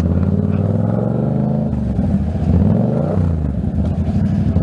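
Yamaha MT-07's parallel-twin engine running at low speed in slow traffic, its note shifting up and down in pitch around the middle as the throttle is worked.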